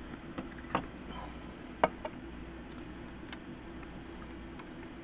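A few light plastic clicks and taps as the hood of a styrene scale model car is lifted off its body, over a steady low background hum. The sharpest click comes a little under two seconds in.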